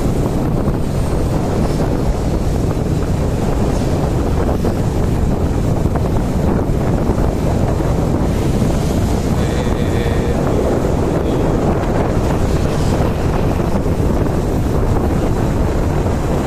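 Wind buffeting the microphone of a camera carried on a moving motor scooter: a steady, loud low rushing, with the ride's road noise underneath.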